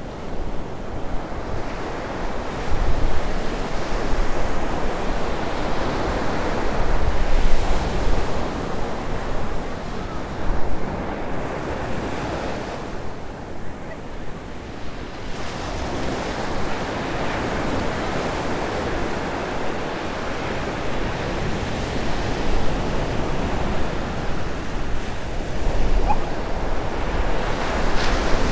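Ocean surf: small waves breaking and washing up the sand, the wash swelling and easing in turn, with gusts of wind rumbling on the microphone now and then.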